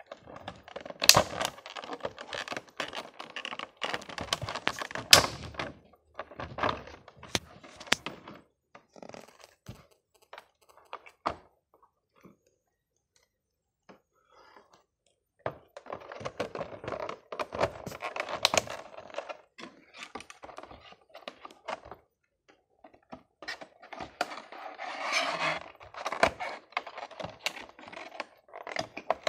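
Plastic packaging being handled: clear plastic wrap crinkling and a plastic tray clicking and knocking, in three bouts with a near-silent pause in the middle.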